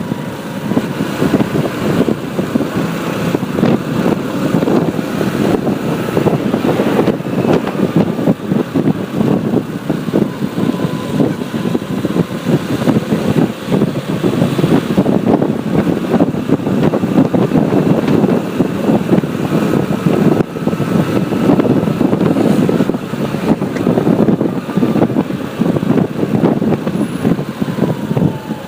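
Road traffic heard from a moving motorbike: a steady, fluttering rush of engine, tyre and wind noise, with a faint thin whine that dips near the end.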